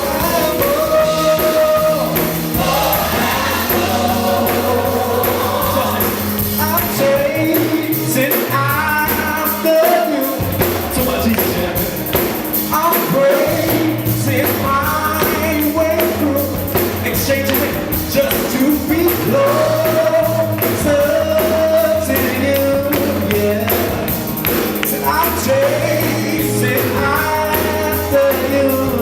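Gospel music: voices singing over a band with sustained bass notes and cymbals.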